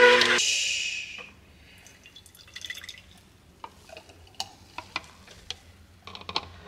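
A slow masticating juicer's motor hum cuts off abruptly about half a second in. Green juice is then poured into a glass mason jar, with faint trickling, drips and small clicks against the glass.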